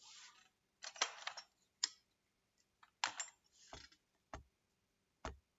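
Computer mouse clicks: about six short, sharp clicks, some in quick little clusters, spread over a few seconds as a browser video player is being started.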